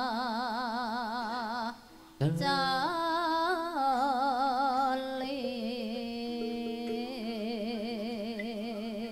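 A Javanese sinden (female singer) singing a slow, sung line into a microphone, holding long notes with a wide, even vibrato. There is a short break about two seconds in, then a rising phrase.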